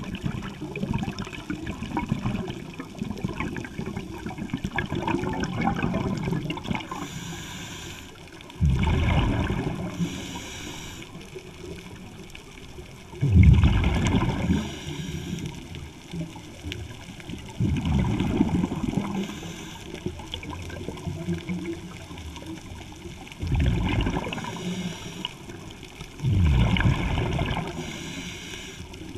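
Scuba diver breathing through a regulator underwater: a hiss on each inhale, then a loud burst of bubbling on each exhale, repeating about every four to five seconds.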